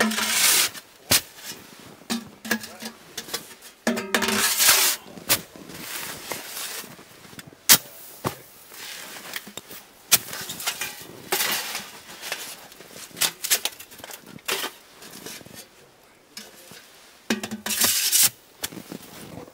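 Sheet-metal stove pipe sections being taken apart, slid into one another and knocked together: repeated metallic clanks and knocks, with several longer scraping slides of pipe inside pipe. A few of the slides carry a brief low ringing.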